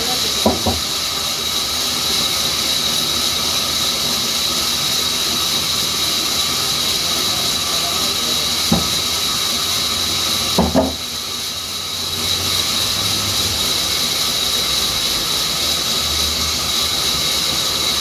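Large vertical band saw running with a steady high-pitched whine and hiss as it cuts mango-wood slabs. Three sharp wooden knocks come about half a second in, near the middle, and just before two-thirds through as boards are handled on the table.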